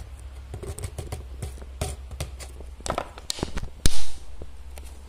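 Clear plastic water bottle being handled, giving scattered clicks and taps of the plastic, with one loud knock a little under four seconds in followed by a short rush of noise.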